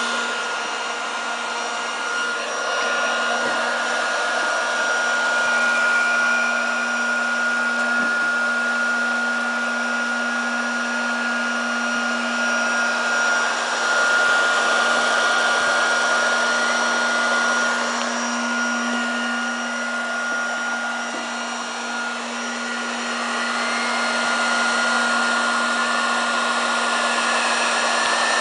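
Herz Planon Tape hot-air overlap welding machine running: its hot-air blower gives a steady hiss, with a constant high tone and a low hum underneath.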